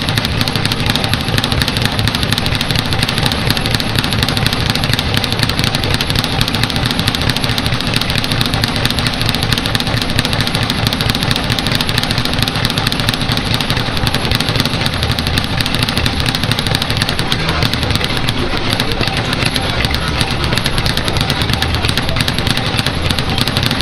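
Speed bag being punched in a fast, steady, unbroken rattle, the leather bag rebounding off its wooden board between blows.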